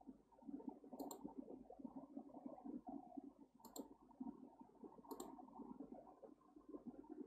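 Three short, sharp computer mouse clicks, about a second in, near the middle and a little past five seconds, over faint low background noise.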